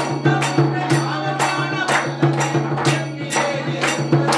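Devotional music with singing over a steady beat of sharp strokes, about three a second.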